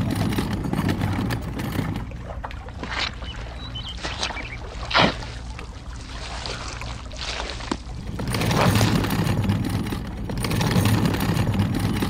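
A steady low rumble, with a few light knocks and clicks from a small metal toy wheelbarrow being tipped to dump wet cement. The sharpest click comes about five seconds in.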